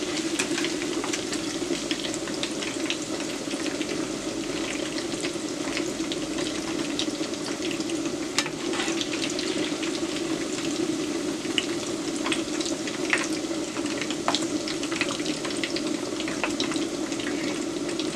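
Pieces of smoked pork jowl frying in hot oil: a steady bubbling sizzle with frequent sharp pops and crackles.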